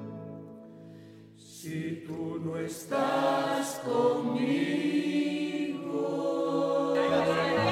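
Background music with a choir singing, falling quiet about a second in and then resuming. Near the end crowd chatter comes in.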